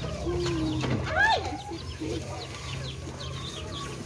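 Chickens clucking and calling, with a louder arched call about a second in and short high chirps scattered throughout.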